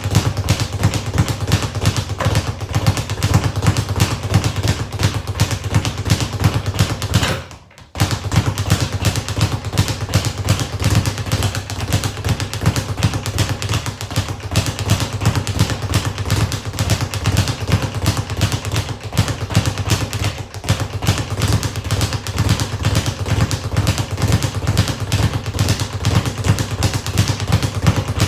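Speed bag being punched in a rapid, even rattle of thuds as it rebounds off its overhead platform. It stops briefly about seven and a half seconds in, then picks up again at the same pace.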